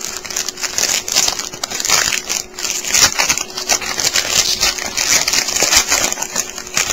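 Plastic and foil trading-card pack wrapping crinkling and crackling steadily as it is handled and pulled open, stopping abruptly at the end.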